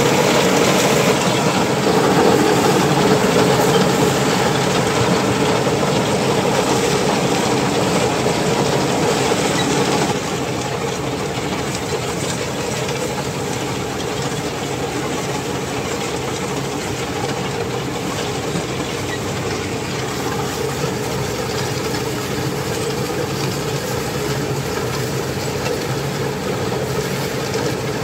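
Mahindra Yuvo tractor's diesel engine running steadily as it tows a loaded grain trailer across a field, a little quieter from about ten seconds in.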